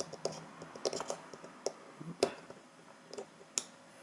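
Small, irregular clicks and taps of fingers working the plastic clips and circuit board on an N-gauge Fleischmann locomotive chassis. The sharpest click comes a little after two seconds in.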